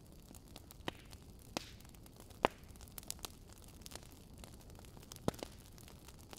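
Faint steady hiss broken by a handful of scattered sharp clicks, the loudest about two and a half seconds in.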